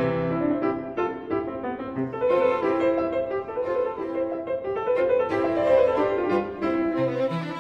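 Instrumental background music with piano to the fore.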